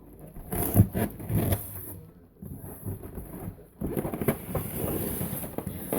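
Hoverboard box being opened and its packaging handled: a few dull knocks on the cardboard, then scratchy rustling of cardboard and packing material with small clicks.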